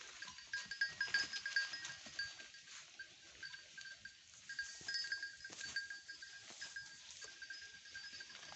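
Goats moving through forest undergrowth, with a small bell ringing in repeated strikes and scattered rustles and ticks.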